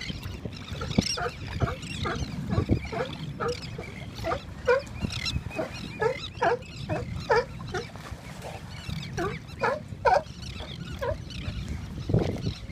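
California sea lions barking over and over: a steady run of short, pitched barks, about two a second, over a low steady rumble.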